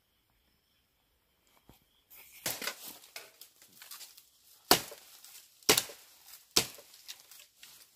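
About two seconds of quiet, then rustling through bamboo leaves and stems. Then a machete strikes bamboo three times in sharp blows about a second apart.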